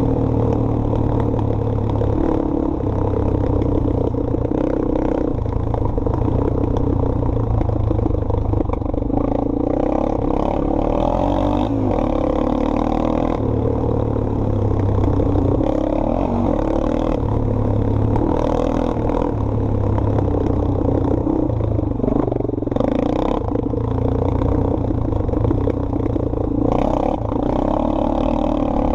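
Sport ATV engine running hard under throttle, its pitch rising and falling with throttle and gear changes, easing off briefly about three-quarters of the way through.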